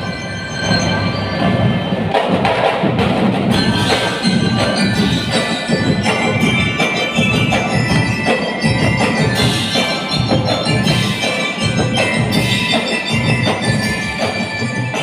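Drum and lyre band playing: bell lyres ringing out a melody over snare and bass drums, with keyboard mallet percussion.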